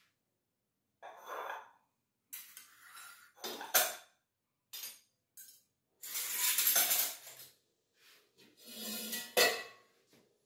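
Steel kitchen utensils and vessels being handled on a granite counter: several stretches of scraping and rustling, each a second or so long, with a sharp metal knock a little before 4 seconds in and another near the end.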